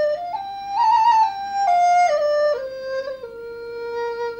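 Background music: a solo flute melody that climbs in steps, falls back, and settles on one long held low note.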